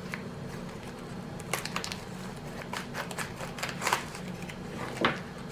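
Handling noise from diamond painting canvas packaging: irregular light clicks, taps and crinkles, busiest in the middle, over a low steady hum.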